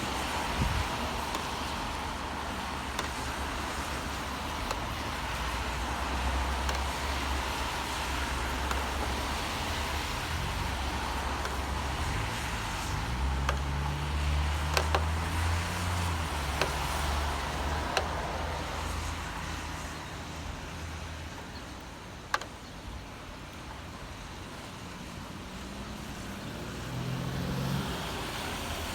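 City traffic on a wet street in the rain: a steady hiss of tyres and rain, with a vehicle's low engine rumble swelling from about six seconds in and fading after about seventeen seconds. A few sharp ticks are heard along the way.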